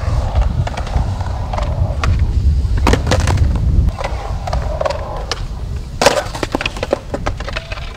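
Skateboard wheels rolling over concrete with a steady low rumble. There are sharp clacks of the board about three seconds in, a loud one about six seconds in during a trick, and then a quick run of smaller clacks as the board clatters on the concrete.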